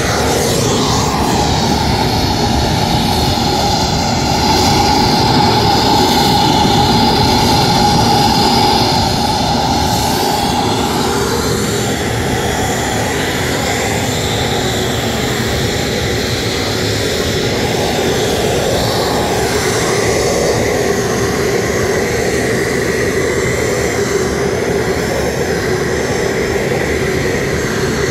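Jet aircraft flying past, a loud continuous engine roar whose pitch sweeps as it passes, loudest a few seconds in, then settling to a steadier rumble.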